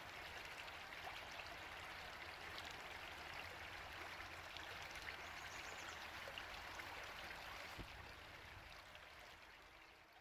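River water rushing steadily over its bed, fading out over the last couple of seconds.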